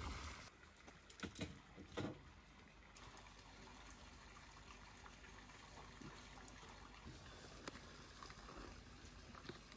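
Near silence with a faint steady hiss, broken about a second in and again at two seconds by a few light clicks of metal kebab skewers against the tandoor's wire rack.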